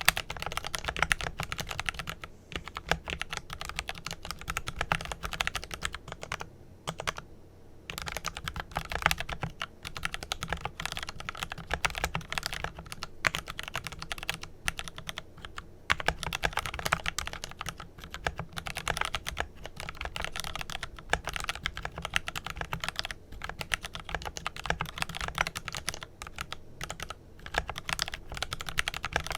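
Fast continuous typing on a GMMK Pro mechanical keyboard with lubed Kailh Pro Purple tactile switches and PBT keycaps: a dense run of keystroke clicks, broken by short pauses, the longest about seven seconds in.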